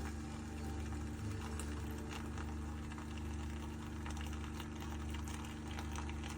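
Keurig K-Supreme Plus single-serve coffee maker running: a steady low pump hum with water noise over it.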